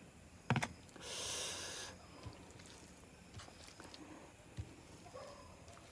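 A sharp knock about half a second in, as the gravy container is set down on the table. Then about a second of rustling hiss, followed by faint clicks and soft wet squishes of fingers mixing chicken curry gravy into rice on a plate.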